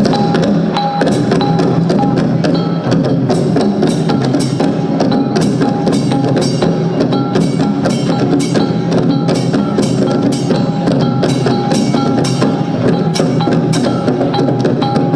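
Music with a steady clicking percussion beat, about two strikes a second, over repeated bell-like tones.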